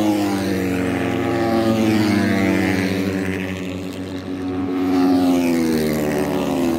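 Racing motorcycle engines at high revs on a straight drag strip, the note sliding down in pitch twice as bikes run past; the second run is the loudest, about five seconds in.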